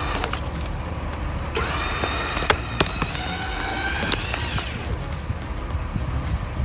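Chainsaw running and revving up as it cuts, with sharp cracks of splintering wood.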